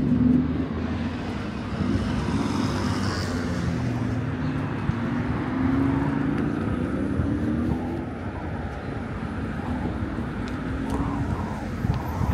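Road traffic passing close by, the engines of several vehicles swelling and fading one after another over a steady rush of tyre noise.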